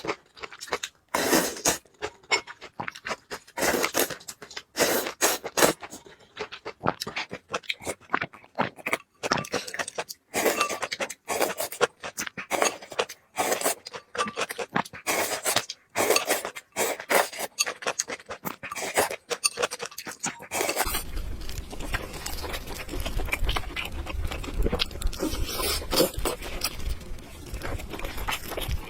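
Close-miked eating: noodles and food slurped and chewed in loud, irregular bursts, giving way about two-thirds of the way through to a steadier noise with a low rumble.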